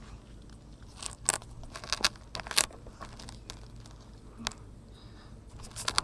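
Irregular crunches and knocks right at the phone's microphone: handling noise as the phone, strapped to an RC buggy, is carried and moved about. Several louder knocks fall about a second in, around two seconds in and near the end.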